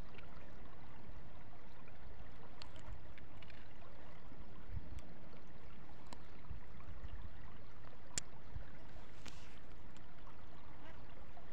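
Steady rushing of flowing river water, with a few faint clicks scattered through it.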